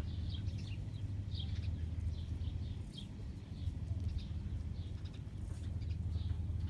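Birds chirping: many short high chirps, several a second, over a steady low hum.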